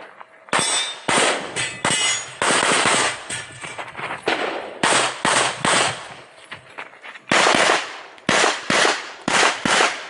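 Glock 47 9mm pistol fired rapidly during a USPSA stage run, shots mostly in quick pairs with short breaks between strings and a longer pause of over a second near the middle.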